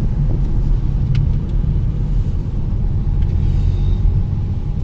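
Car driving along a road heard from inside the cabin: a steady low rumble of tyre and engine noise.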